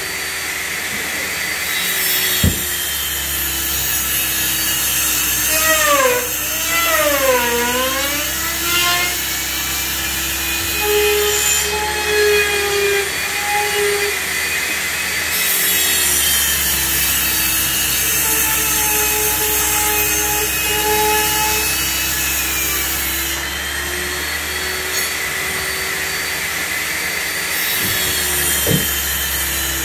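Electric handheld trim router running steadily on plywood, its motor pitch sagging and recovering as it loads up in the cut, with a sharp knock or two as the wooden box is moved.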